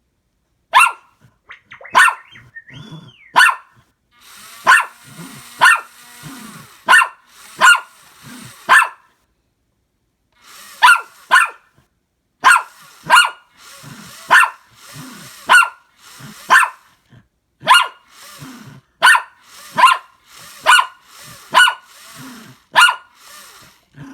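Dog barking repeatedly, sharp loud barks about once a second, with a short pause about ten seconds in.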